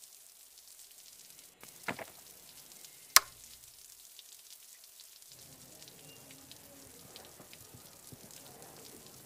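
Faint crackling hiss of rain with two sharp clicks, the second loud, as the room light is switched off. About five seconds in, a low rumbling drone comes in under the hiss.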